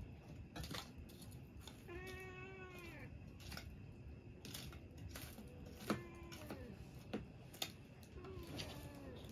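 A domestic cat meowing three times: a long call about two seconds in, then two shorter falling meows later on. Scattered light clicks and knocks sound between the calls.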